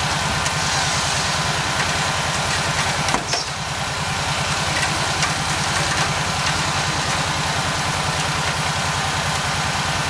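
Four-wheeler (ATV) engine idling steadily, with a brief click about three seconds in.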